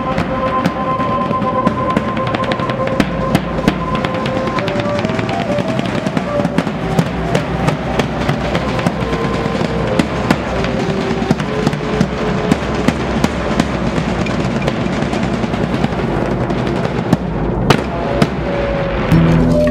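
A drum band of bass drums and snare drums playing a fast, dense dance beat. A simple melody on a high instrument sounds over the drums for much of the time.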